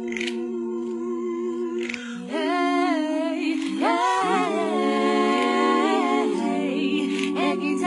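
A cappella vocal group: several voices hold a steady chord, then about two seconds in the singing grows louder and moves into a melody sung in harmony.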